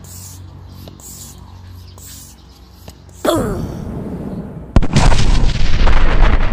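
Explosion sound effect: a sudden rush with a falling whistle about three seconds in, then a sharp crack and a long, loud blast from about five seconds in.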